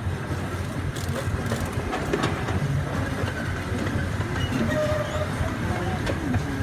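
Small park excursion train running along its track, heard from aboard a passenger car: a steady low running noise of the wheels and cars on the rails, with scattered clicks and rattles.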